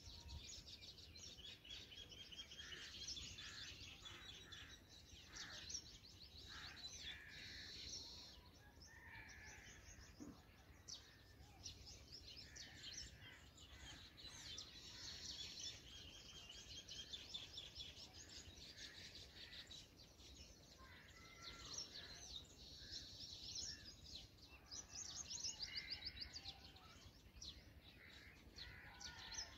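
Black drongo nestlings begging at the nest: faint, high-pitched chirping and rapid trills, repeated over and over throughout.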